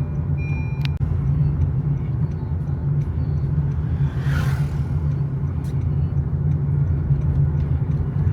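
Motor vehicle running along the road, heard from inside the cabin as a steady low rumble. A repeating electronic beep stops about a second in, and a brief hiss comes near the middle.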